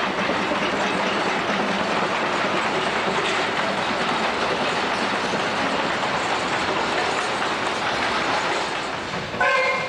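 Narrow-gauge train's wagons and coaches rolling past close by: a steady clatter of wheels over rail joints. A short, loud pitched tone sounds near the end.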